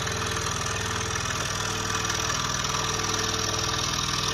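Scroll saw running steadily, its blade reciprocating and cutting through a thin wooden board as the work is fed along the line.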